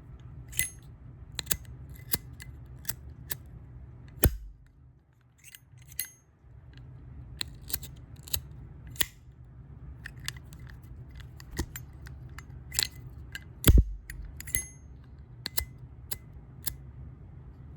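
Zippo lighter being worked: a string of sharp metallic clicks and clinks with a brief ring, typical of the hinged lid flicking open and snapping shut, at an uneven pace. One heavier click with a thump comes about three-quarters of the way through.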